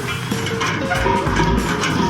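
Background music with plucked guitar notes and a steady beat.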